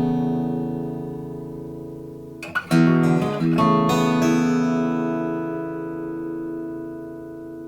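Blueridge BR-160A steel-string acoustic guitar finger-picked: notes ring and fade, a new group of plucked notes comes in about two and a half seconds in, and the chord is then left to ring out slowly.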